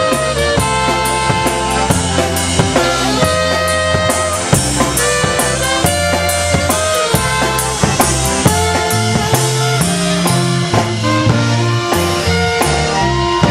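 Live dance band playing a waltz: trumpet and saxophone carry the melody over a drum kit keeping a steady beat and a bass guitar.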